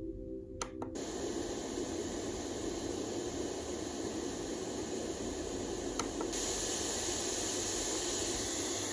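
White noise machine playing a steady hiss track. A button click about a second in switches it over from a low humming tone sound. Another click about six seconds in leaves the hiss a little brighter.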